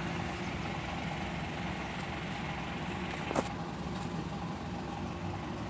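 Steady low mechanical hum like an idling engine, with one sharp click about three and a half seconds in.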